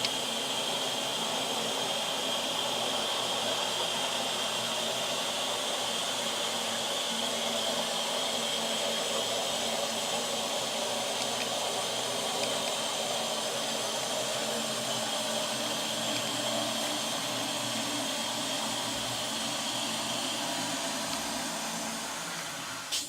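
Toilet cistern refilling after a flush: a steady hiss of water rushing through the tank, dying away near the end.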